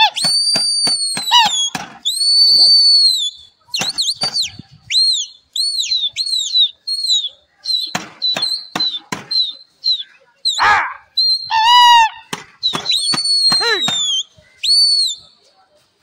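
A pigeon flyer's loud whistling: a quick run of rising-and-falling whistles, some drawn out long, used to keep the released flock of pigeons circling aloft. Short sharp cracks come between the whistles, and a brief high wavering call sounds about three-quarters of the way through.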